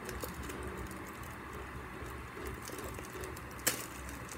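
Small handling sounds of hands working clear plastic packaging, with one sharp click near the end, over a steady low background hum.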